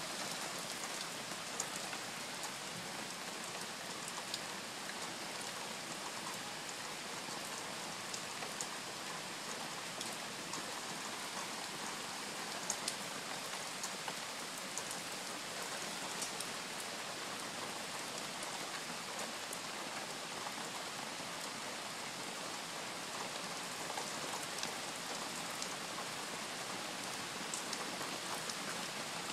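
Heavy rain falling steadily on a garden lawn and a wet patio, with scattered sharp taps from drops striking things close by.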